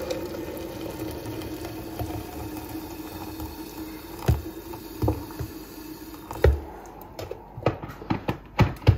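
Hot water poured from a kettle into a glass French press of coffee grounds, a steady filling sound that stops about six seconds in. Several light knocks and clicks follow near the end.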